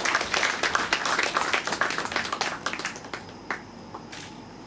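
Audience applauding, dying away about three seconds in, with a few last scattered claps after.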